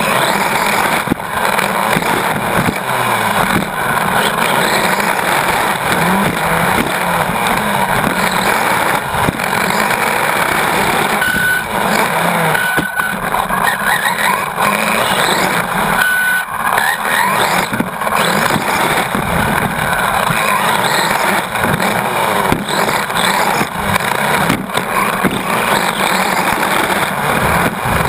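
Onboard sound of a Team Associated RC8.2e 1/8-scale electric buggy lapping a dirt track: a brushless motor whine that rises and falls with the throttle over dense drivetrain and tyre noise, with occasional short knocks from the chassis over bumps.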